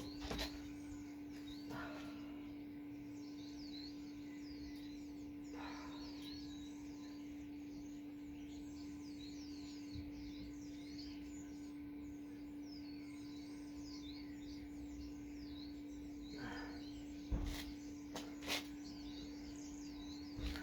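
Small birds chirping continuously in the background, over a steady hum, with a few short knocks, the loudest two near the end.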